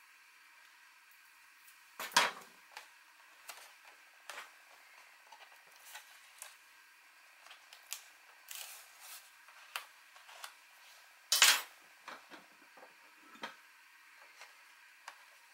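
Small sharp clicks and taps from small craft magnets and a hand tool being handled on card, with two louder clicks about two seconds in and near eleven and a half seconds.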